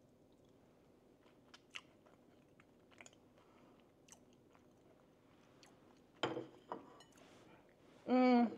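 A person chewing a goat cheese ball on a pretzel stick, faint mouth clicks with a couple of louder crunches about six seconds in. A short hummed "mm" near the end is the loudest sound.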